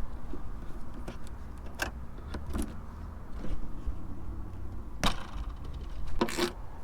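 A few separate sharp clicks and knocks of small plastic and metal seat belt parts being handled and pried at with a dental pick, over a low steady hum.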